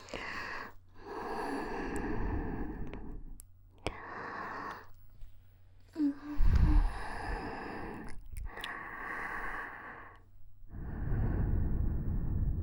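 Slow, close breaths into a binaural dummy-head microphone: about six long breathy sighs with short pauses between them. A little past halfway, one breath strikes the microphone with a low rumble.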